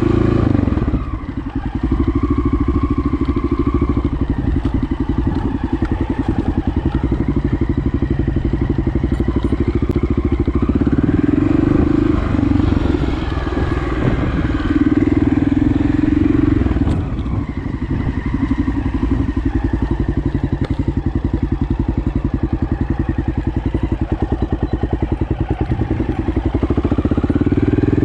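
Honda XL600R's single-cylinder four-stroke engine running under way, the throttle easing off briefly about a second in and again about two-thirds of the way through, with the revs rising near the end.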